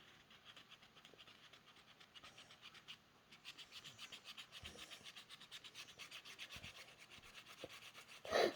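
Chalk colour being scribbled back and forth on a chalkboard-fabric shirt: faint, quick scratchy strokes, about five a second, getting stronger about three seconds in.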